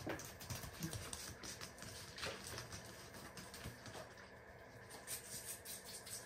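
Faint, irregular light tapping and clicking over a low background hush.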